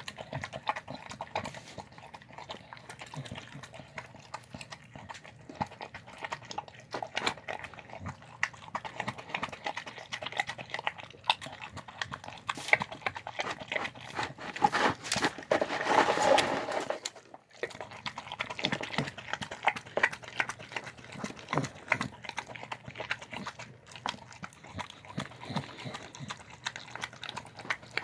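A dog eating a meal of chicken and rice: a steady run of quick chewing clicks, louder for a few seconds just past the middle.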